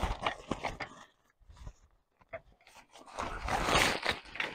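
Nylon fabric rustling and scraping with light knocks from a folding metal frame as a folded camp chair is handled. A few short rustles come with clicks at first, then a louder, longer rustle starts about three seconds in.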